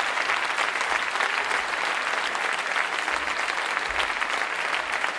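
A large audience applauding steadily, a dense clatter of many hands clapping.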